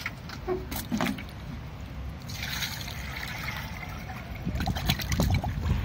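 Water pouring for about two seconds, starting about two seconds in, as the sink is filled for a drain test. A few knocks come near the start, and a low rumble builds near the end.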